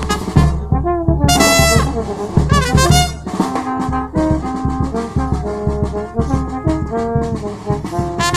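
A small brass band playing live: trombones carrying a tune in held notes over a bass drum struck on the beat, the drum thinning out about three seconds in.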